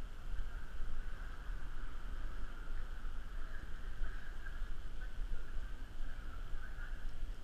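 Wind buffeting a GoPro's microphone, a steady low rumble, over a faint steady higher hum.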